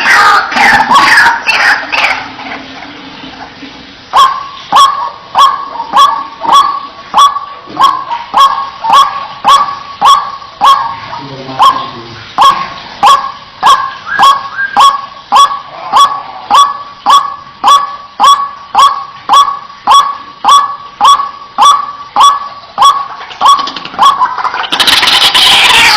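White-breasted waterhen calling: a loud, dense run of calls at first, then a long, regular series of single sharp 'wak' notes about one and a half a second, with the dense loud calling starting again near the end.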